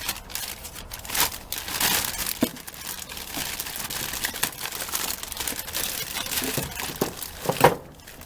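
Packaging crinkling and rustling as a new brake master cylinder is unwrapped, with irregular crackles throughout and one sharper, louder noise near the end.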